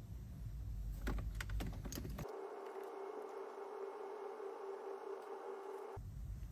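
A few light, quick clicks and taps about one to two seconds in, over a faint low rumble. The sound then changes abruptly to a steady, single-pitched hum for about four seconds before the low rumble returns.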